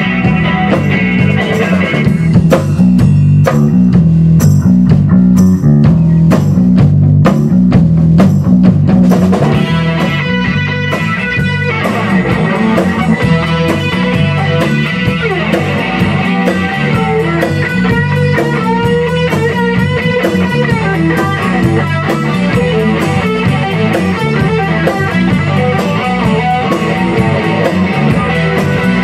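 Live rock band playing: electric bass, electric guitar and a Tama drum kit, played through amps in a small room. About ten seconds in, the guitar's notes come forward over the steady drums and bass, with some bent notes after that.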